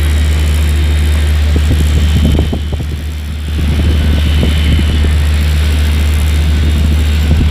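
Wind buffeting the phone's microphone on an open ship's bridge wing: a heavy, steady low rumble with gusty rushing above it, easing briefly about two and a half seconds in before picking up again.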